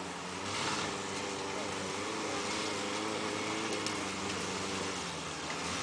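JPX off-road jeep's engine running at low, steady revs as it crawls over a rocky trail, its pitch wavering slightly under changing load.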